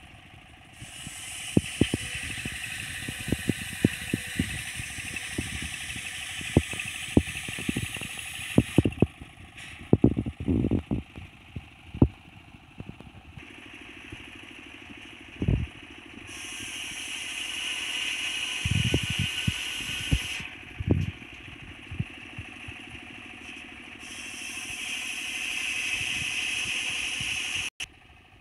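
Engine-driven circular saw bench cutting medang timber: the blade whines through the wood in three cuts, a long one of about eight seconds and two shorter ones of about four seconds each. Between the cuts the engine runs on with scattered knocks and thuds of wood being handled.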